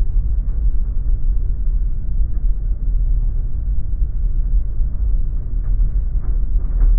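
Steady low rumble of an aircraft's twin-wheel landing gear rolling along the runway, with a few faint knocks near the end.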